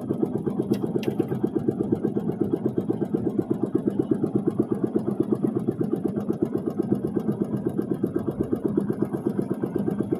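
Small engine running steadily at a constant speed, a rapid even throb with no change in pitch.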